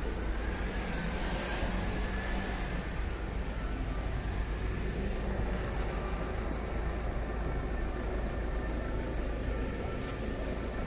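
City street traffic: a steady hum of vehicles with a low rumble underneath.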